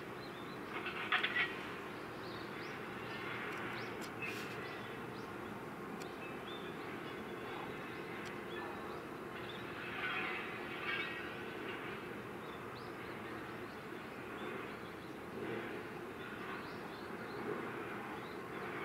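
Steady low outdoor rumble of distant harbour and machinery noise, with short high chirps about a second in and again around ten seconds in.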